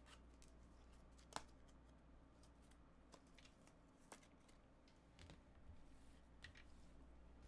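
Near silence: room tone with a low hum and a few faint clicks and taps, the clearest about a second and a half in.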